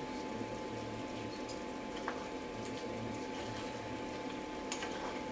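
Pot of chicken adobo with pineapple chunks simmering: a steady hiss with a faint steady hum under it and a few light clicks.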